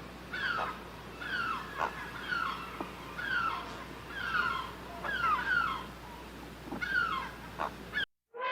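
A small animal's short, high calls, repeated about once a second, each one falling in pitch, over a steady low hum.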